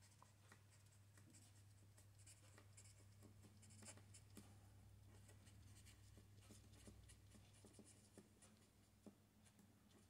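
Faint scratching of a felt-tip marker writing on paper, a quick series of short strokes, over a steady low hum.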